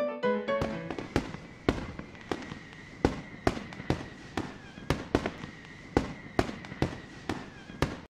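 A series of sharp bangs at uneven intervals, about two a second, each with a short decay, like fireworks going off, over a faint steady high tone. The tail of an electronic music track fades out at the start, and everything cuts off suddenly near the end.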